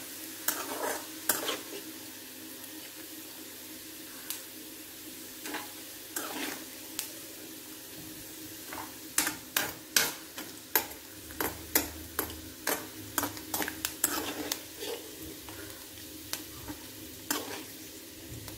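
Steel spoon scraping and clinking against an aluminium kadai as chopped coconut pieces fry in hot oil, with a steady sizzle underneath. The clinks come irregularly and crowd together in the middle; the coconut has browned and is being scooped out of the pan.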